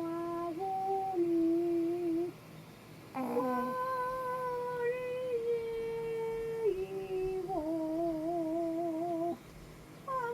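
Shih Tzu puppy snoring in its sleep, a whistling, hum-like nasal tone that holds one pitch for a few seconds, then steps up or down and wavers. It breaks off twice for about a second between breaths.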